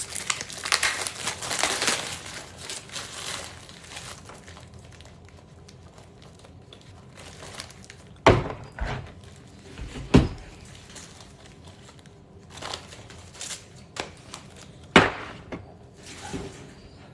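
Plastic wrapping on a pack of top loaders (rigid plastic card holders) crinkling as it is torn open for the first few seconds, then quieter handling with a few sharp knocks, the loudest three about 8, 10 and 15 seconds in.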